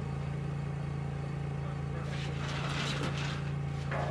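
A steady machine hum. About two seconds in, a stretch of rustling, scraping noise joins it, and a short sharp sound comes near the end.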